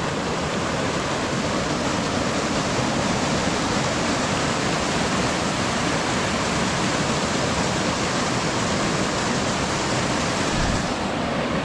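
Steady rush of a small river waterfall pouring over boulders into a pool.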